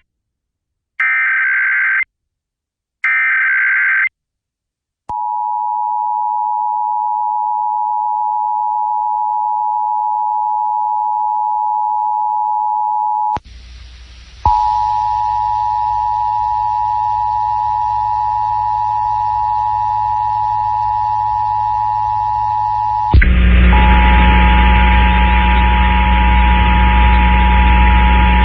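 Emergency Alert System SAME header: two one-second bursts of warbling digital data tones, a second apart, the last of the header's three repeats. Then the steady two-tone EAS attention signal starts and holds. About halfway through, hiss and hum come in under it with a one-second dropout of the tone, and the hum and noise grow louder near the end.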